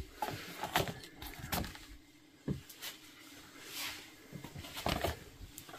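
Intermittent rustling with a handful of sharper taps and knocks, irregularly spaced: old papers, photos and small objects being handled and shifted around a cluttered room.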